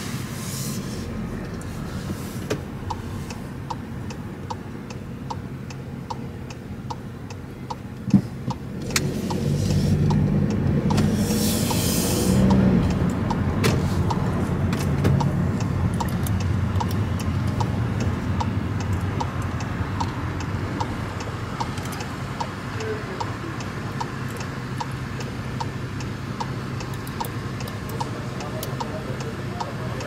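Car's turn-signal indicator ticking steadily, about one and a half ticks a second, over engine and road noise heard from inside the cabin. A short thump just after eight seconds, then the engine and tyre noise grows louder as the car pulls away.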